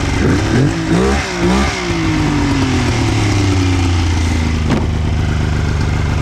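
Old three-cylinder snowmobile engine running with the hood open, blipped up and down a few times in the first two seconds, then settling to a steady idle. It is running on only two of its three cylinders.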